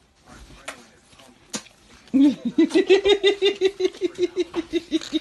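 A child laughing hard in a rapid, steady run of giggles that starts about two seconds in, after a few soft clicks.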